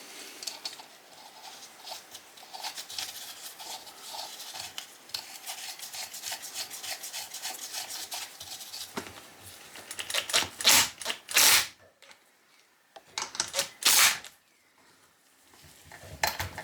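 Nut being run down and tightened onto the magneto flywheel of a Sachs 50/3 two-stroke engine. Fast faint metallic clicking for the first nine seconds or so, then several louder rubbing, scraping noises of metal parts and tools.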